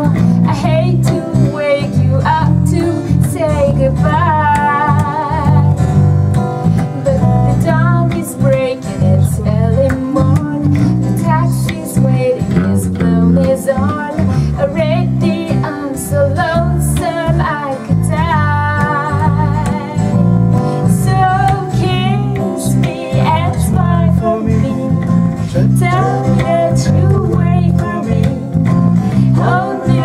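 A woman singing a folk song live while strumming an acoustic guitar, with an electric bass playing underneath. The singing comes in phrases with short breaks between them over steady strumming.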